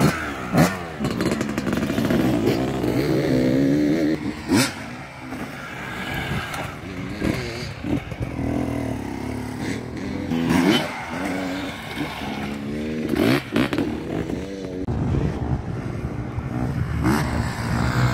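Off-road enduro motorcycles riding past on a dirt track, their engines revving up and dropping back over and over, with a few sharp cracks.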